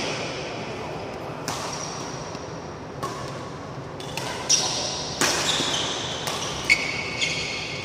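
Badminton racquets striking a shuttlecock in a doubles rally: about five sharp smacks a second or so apart, the loudest near the middle and near the end, echoing in a large hall. Short high squeaks from players' shoes on the court floor come between the hits.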